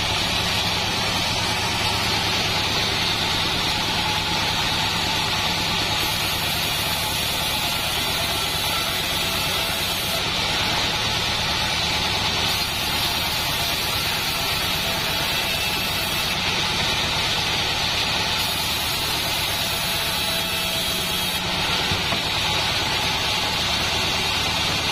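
Assembled bandsaw mill running steadily, its drive motor droning without a break while a salam wood plank is fed through the band blade.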